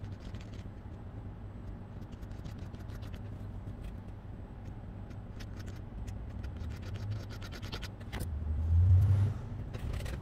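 Metal scraper blade scraping solder paste across a steel BGA reballing stencil, with short, scratchy strokes. Under them runs a steady low hum, and a louder low rumble swells about eight seconds in.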